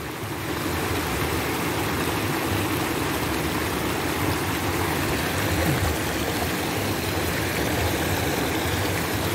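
Water pouring and churning into a fish pond, a steady rush.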